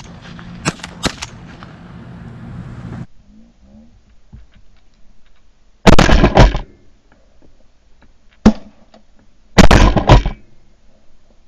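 Shotgun shots: two blasts close together about six seconds in, a single shot about two and a half seconds later, and two more close together near the end. Before them, a steady motor-like noise with a few sharp clicks cuts off suddenly about three seconds in.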